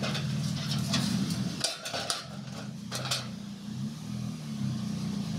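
Empty metal paint cans clanking and knocking a few times as they are handled and stacked on one another, over a steady low hum.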